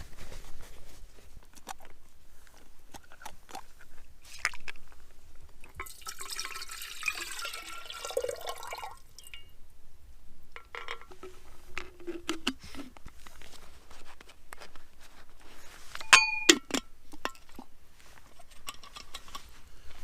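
Water poured into a metal pot for boiling, followed a few seconds later by ringing metallic clinks of the pot. Small sharp crackles from a wood fire are scattered throughout.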